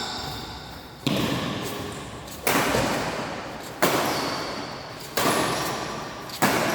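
Badminton rackets striking a shuttlecock in a rally: five sharp hits, about one every second and a third, each ringing on in the hall's echo.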